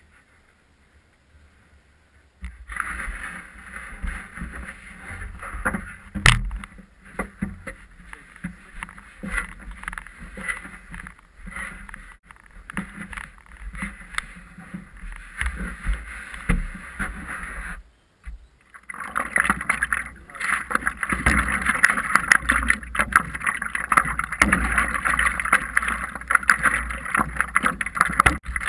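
Knocks and rustling as a stand-up paddleboard with a camera on its nose is handled. Then, from about 19 s, water splashing and lapping close against the board as it is paddled along, with the small knocks of paddle strokes.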